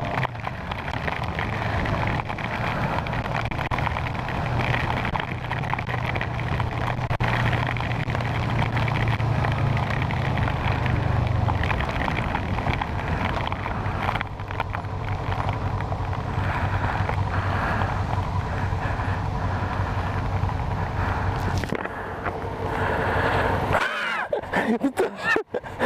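Kawasaki ER-6n parallel-twin motorcycle engine running while riding in heavy rain, mixed with a steady hiss of wind and wet road. The engine note sits higher for the first half, then settles lower. Near the end it drops away among a few knocks.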